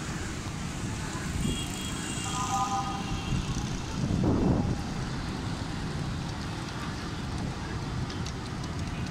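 Steady low rumble of city traffic with wind buffeting the microphone. A short distant vehicle horn sounds about two seconds in, and the rumble swells louder for about half a second a little after four seconds.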